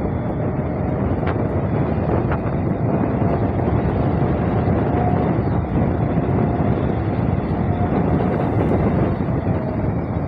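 A scooter at road speed: wind rushing over the handlebar-mounted microphone, with the scooter's engine running steadily underneath.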